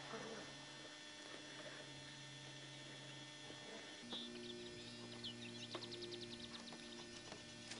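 Faint, steady electrical hum. From about four seconds in, small birds chirp, with a quick trill a little after five seconds.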